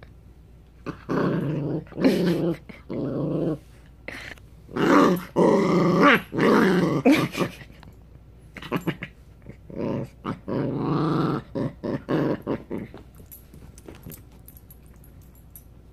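Small puppy growling in three drawn-out bouts of a couple of seconds each, with short pauses between, while it mouths at a hand.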